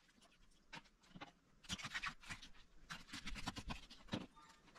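Small clicks, scrapes and light knocks of hard marron (freshwater crayfish) shells being handled on a wooden chopping board and in a tub of water, busiest in two patches about two and three-and-a-half seconds in.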